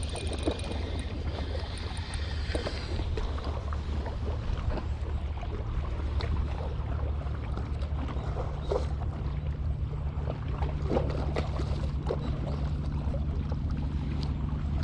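A boat engine running steadily as a low hum, with a slightly higher tone joining about eight seconds in. Scattered light clicks and knocks sound over it.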